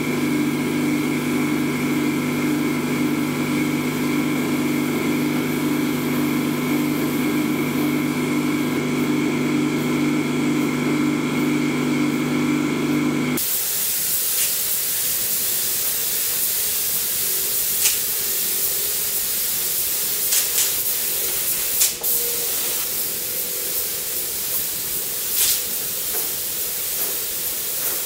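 A steady motor hum with several fixed pitches cuts off abruptly about halfway through. An air spray gun's high hiss follows, with a few sharp clicks.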